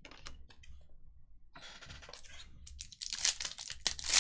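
Trading cards clicking and sliding against each other, then a foil trading-card pack wrapper being torn open and crinkled, loudest over the last second or so.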